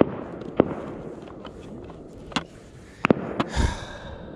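Rifle shots fired into the river from the bank, about five at irregular intervals, two of them in quick succession about three seconds in, each with a short echo.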